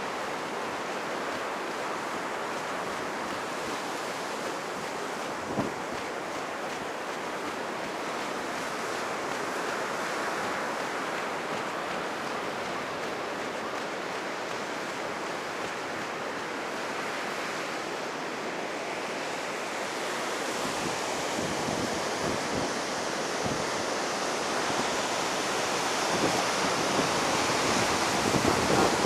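Ocean surf breaking on a sandy beach, the heavy swell left by a passing typhoon, with wind buffeting the microphone. The surf grows louder in the last third.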